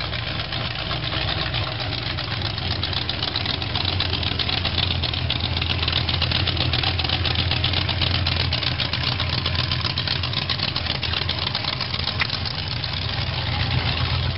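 Supercharged V8 hot rod roadster with open zoomie headers, running at a steady idle as it rolls slowly past. It makes a loud, deep, even rumble with rapid exhaust pulses.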